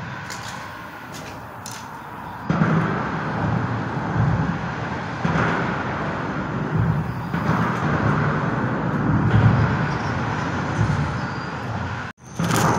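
Road traffic crossing the bridge overhead: a steady rumble that grows louder a couple of seconds in and then swells and eases as vehicles pass.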